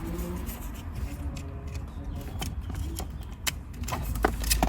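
Scattered light clicks and rattles of hands working on car wiring and plastic parts under the dashboard, with a few sharper clicks near the end, over a steady low hum.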